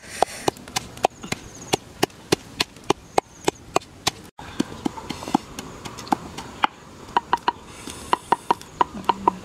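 Chopping with a blade: a run of sharp strikes, about three a second. The strikes break off briefly about four seconds in, then resume and grow quicker toward the end.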